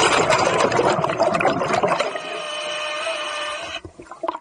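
Scuba diver breathing underwater through a regulator: a loud rush of exhaled bubbles, then about two seconds in a steady tone that stops shortly before the end.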